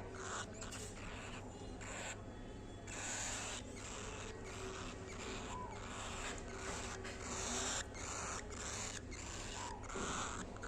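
Pet cockatiel eating egg: irregular scratchy nibbling and pecking sounds that come and go in short spells.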